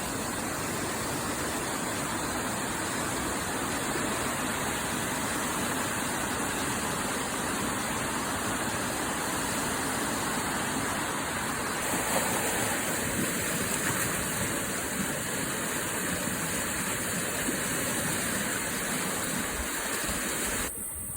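Steady rushing of whitewater on a fast-flowing river, turning quieter and duller just before the end.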